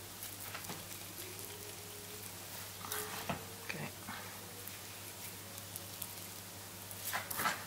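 A filleting knife cutting along the backbone of a black sea bream, the blade ticking and scraping faintly over the bones, with a louder scrape near the end. A steady low hum runs underneath.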